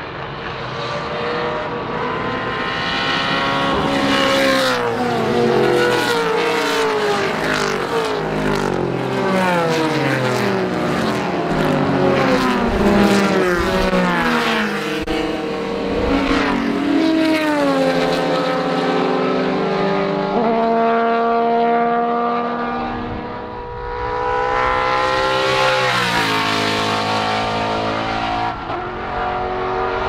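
Vintage race cars' engines running hard past on the track, several at once, each pitch climbing through the gears and dropping at the shifts and as the cars go by. There is a brief lull about three-quarters of the way through, then another car comes up loud.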